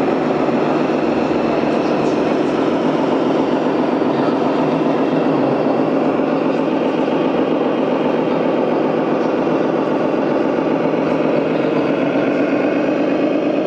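Radio-controlled scale model vehicles running: a steady mechanical drone with several engine-like tones that slowly rise in pitch near the end.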